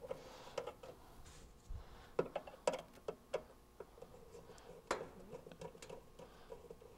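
Scattered small clicks and taps of hands working a wire into a terminal on a furnace fan module's control board. The loudest click comes about five seconds in, over a faint steady hum.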